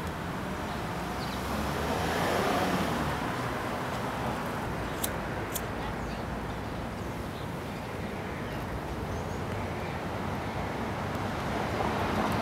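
Outdoor street ambience: a steady hum of distant traffic, with two sharp clicks about five seconds in.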